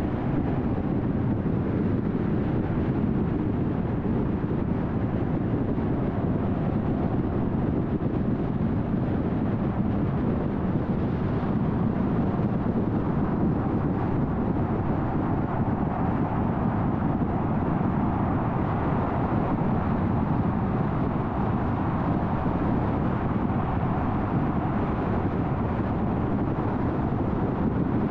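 Steady road noise of a car cruising at freeway speed: tyre and engine hum, even and unbroken.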